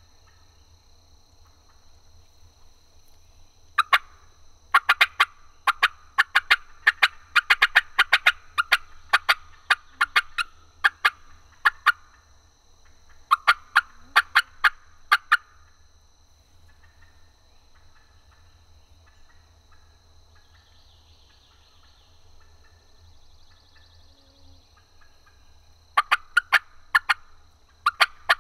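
Osceola wild turkey gobblers gobbling loudly at close range: a long run of rapid rattling gobbles from about four seconds in to about twelve, another burst a little later, and more gobbling near the end.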